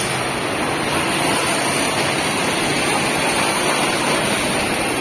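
Steady, even din of a tractor assembly hall: machinery and ventilation noise with no distinct knocks, tones or voices standing out.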